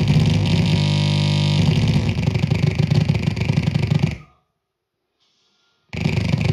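Ciat-lonbarde Old Mr Grassi noise synth played by fingers on its brass touch contacts: dense, buzzing, crackling electronic noise over a low drone, briefly settling into a steadier pitched tone about a second in. It cuts out to silence about four seconds in and comes back abruptly near the end.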